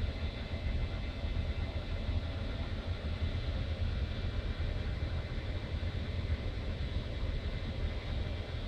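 Steady low rumble with a faint even hum over it: the background machinery and ventilation noise of a ship's bridge.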